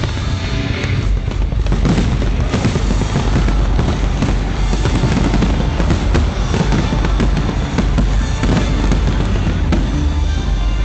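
Fireworks display with shells bursting in rapid, overlapping succession, a continuous barrage of bangs and crackling over a low rumble, with music playing underneath.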